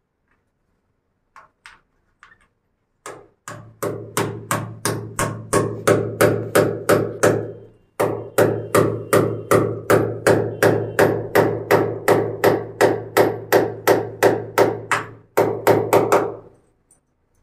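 Hand hammer striking repeatedly and evenly, about three blows a second, with a short break about halfway and another near the end. The blows land at the wall by the water pipework.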